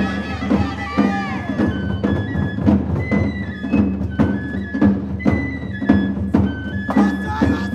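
Japanese festival hayashi music played on a dashi float: a bamboo shinobue flute plays a melody of held notes over a steady beat of taiko drum and percussion strikes, about two a second.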